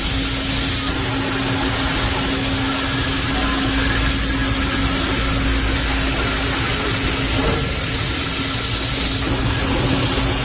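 CNC multi-spindle beam drilling machine running steadily, a constant hum under a loud hiss, with a few brief high squeals.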